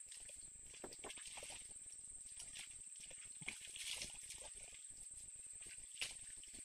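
Faint rustling and light ticks of movement in dry grass and palm litter, with a few slightly louder crackles, over a steady high-pitched whine.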